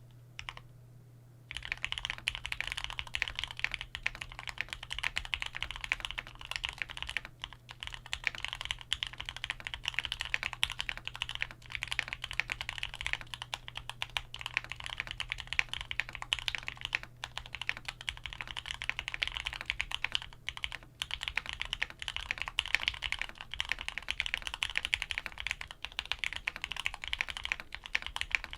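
Rapid, continuous typing on a Qwertykeys QK100 custom mechanical keyboard with stock Gateron Oil King linear switches, a carbon fibre plate, soft gasket mount, PE and case foam, and DCX keycaps. A single keystroke comes first, then the steady run of keystrokes starts about a second and a half in, with a few brief pauses.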